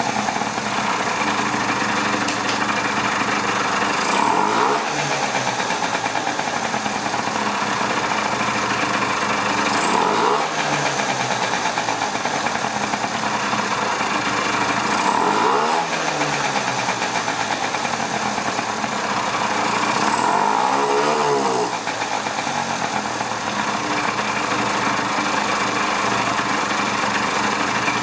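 1986 Honda Spree 50cc two-stroke scooter engine running on the bench, its speed swelling up and falling back four times, about every five and a half seconds. It still has fuel delivery problems.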